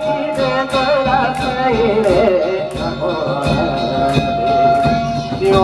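Danjiri pulling song (hikiuta): a solo voice sings a slow, wavering melismatic line, holding one long note for over a second in the second half, over steady sharp percussion strokes.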